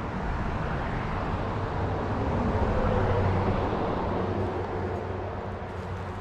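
A motor vehicle passing by, its engine and tyre noise swelling to a peak about three seconds in and then fading.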